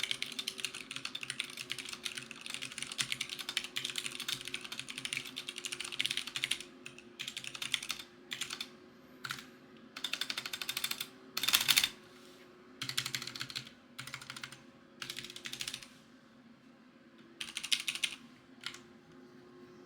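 Typing on a Ducky One 2 full-size mechanical keyboard with unlubricated Cherry MX Brown switches. Fast, continuous keystrokes run for the first six seconds or so, then come separate bursts of typing with short pauses between them. The loudest burst falls a little past the middle.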